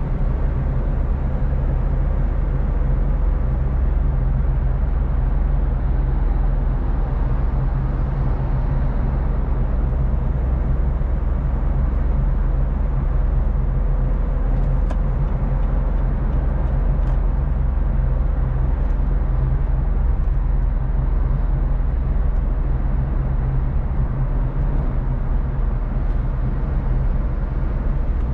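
A car driving at highway speed: a steady, low rumble of engine and road noise that holds even throughout.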